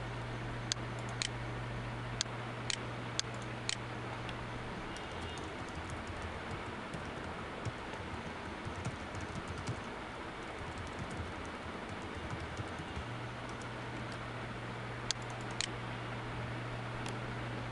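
Typing on a computer keyboard for several seconds in the middle, with sharp single mouse clicks before it and two more clicks about half a second apart near the end. A steady low hum and hiss runs underneath.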